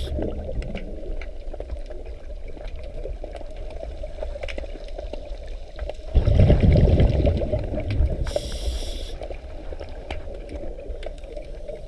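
Scuba diver breathing through a regulator, heard underwater: a burst of exhaled bubbles rumbles for about two seconds about six seconds in, followed by a short hiss of inhalation. Faint ticks and a steady low background fill the rest.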